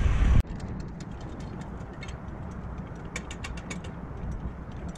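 Construction-site sound played sped up: a steady low machine rumble under a quick scatter of sharp clicks and ticks. It follows a louder rumble that cuts off abruptly just under half a second in.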